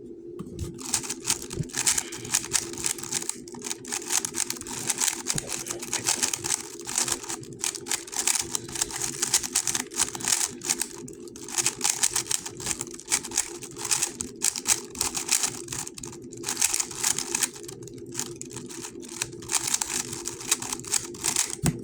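GAN 11 M Pro magnetic speedcube being turned fast during a timed solve: a rapid, continuous clicking and clacking of the plastic layers, broken by a few brief pauses.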